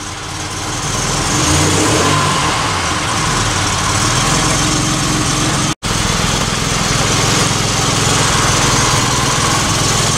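Citroen SM's Maserati V6 engine idling steadily while the hydraulic suspension raises the car off its lowest setting. The sound drops out for an instant about six seconds in, then carries on.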